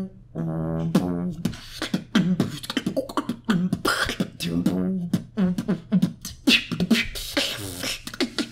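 A beatboxer performing a mouth-made beat: fast sharp clicks and hissing snare sounds mixed with buzzing, hummed pitched vocal tones.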